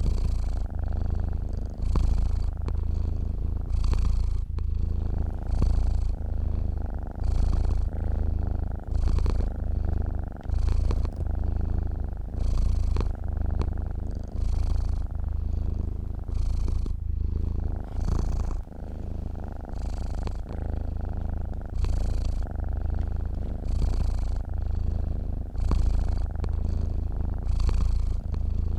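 A sleeping domestic cat purring: a low, continuous rumble that swells and eases with each breath, about every two seconds.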